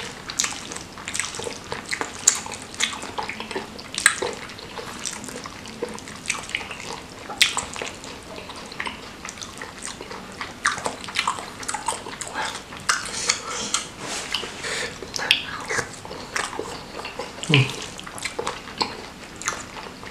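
Close-miked wet chewing and slurping of saucy, chili-coated seblak crackers, full of sticky mouth smacks and clicks, with a wooden spoon scooping in a stone mortar. A short low hum comes near the end.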